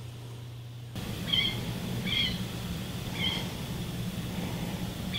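Motor oil glugging from a plastic bottle into a motorcycle engine's oil filler, a low fluttering pour. Three short high chirps from an animal come over it.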